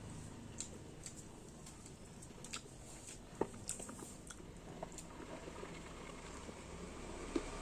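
A person chewing food close to the microphone: faint chewing with scattered small mouth clicks.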